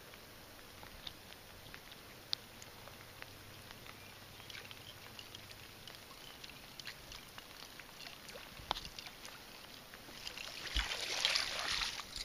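Topwater musky lure being retrieved across calm water, with faint splashing and small ticks. A louder splash comes near the end.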